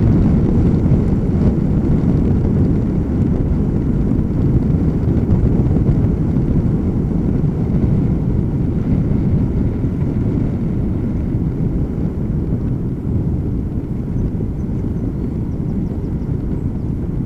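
Steady low wind rumble over the microphone of a camera carried on a moving bicycle, easing a little in the second half.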